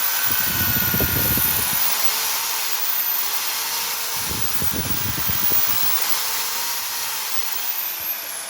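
Handheld electric power tool running steadily with a high whine and a hiss. Two low rumbles come in, at about half a second and about four seconds in, and near the end the whine starts dropping in pitch as the tool spins down.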